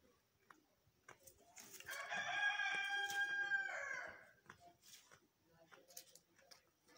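A rooster crowing once, about two seconds in: one high call of some two and a half seconds that holds its pitch, then falls away at the end.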